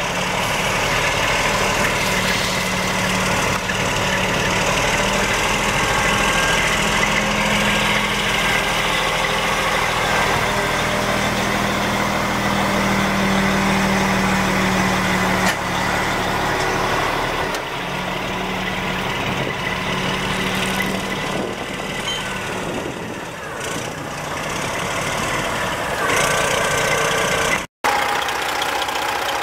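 Detroit Diesel Series 60 12.7-litre inline-six diesel in a 1998 Freightliner FLD120 semi truck idling steadily, with a momentary dropout in the sound near the end.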